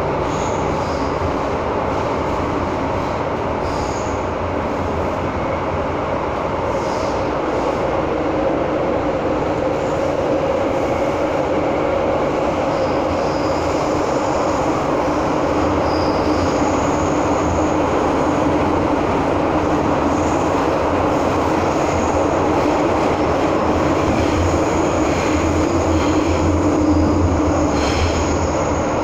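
Interior of an MTR M-Train car running through a tunnel: a steady roar of wheels on rail with a low running hum. Thin, high wheel squeals come and go, and the noise grows slightly louder near the end.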